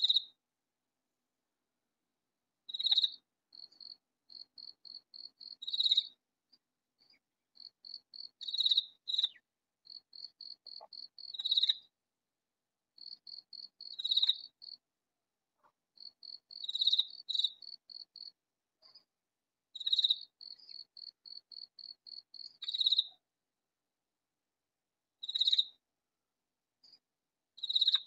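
Katydid calling: a short, loud, high-pitched rasp about every three seconds, with runs of quieter, quick even ticks, about three or four a second, between the rasps.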